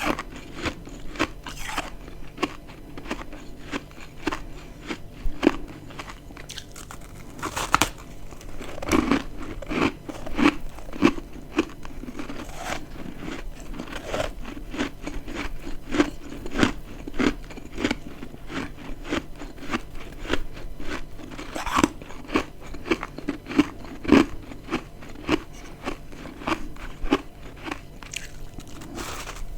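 Close-up biting and chewing of dry, crispy humidifier-grown freezer frost chunks. The sharp, crackly crunches come thick and fast throughout, with heavier bites every second or so from about a third of the way in.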